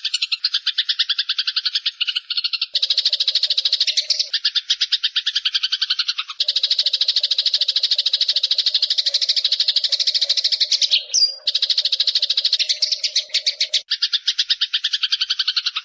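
Eurasian tree sparrows chattering in long runs of fast, repeated chirps, about ten a second, with short breaks between runs.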